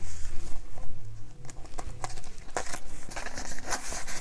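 Paper bills rustling and crinkling as a stack of cash is slid into a clear plastic zipper pocket of a budget binder, with light taps and clicks from the handling.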